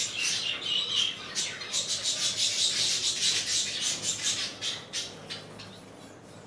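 A roomful of caged small birds, Java sparrows among them, chirping and calling over one another in a dense chatter that thins out about five seconds in.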